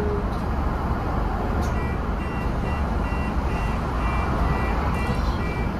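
Scania N230UD double-decker bus's diesel engine idling with a steady low rumble. From about two seconds in, a run of short high electronic beeps repeats about two or three times a second for several seconds.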